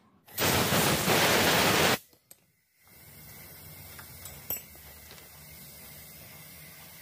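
A loud burst of hissing noise that lasts under two seconds and stops abruptly, followed by a low steady hiss with a few faint metallic clicks as brake pads and their clips are fitted into the caliper bracket.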